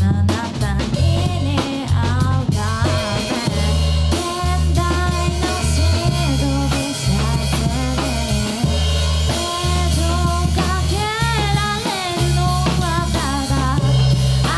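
Live rock band playing: drum kit and electric bass holding a steady groove under a sung vocal melody, with the singer's vibrato on long notes near the end.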